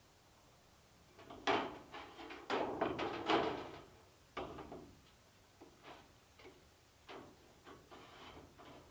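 Galvanized sheet-metal chimney pipe roof flashing clattering against a corrugated metal roof as it is handled and set in place: a run of loud clanks and rattles between about one and three and a half seconds in, then lighter scattered taps and scrapes.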